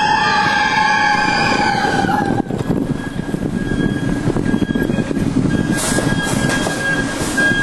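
Mine-train roller coaster running along its track. A shrill, held squeal stops about two seconds in, leaving a steady rattling rumble of the cars on the rails.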